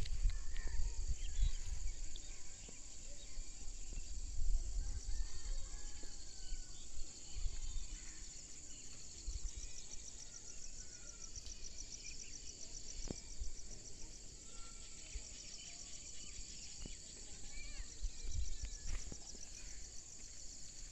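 Steady high-pitched chorus of insects with a fast pulsing trill, with scattered short bird chirps over it. Low rumbling buffets on the microphone are loudest in the first few seconds and again near the end.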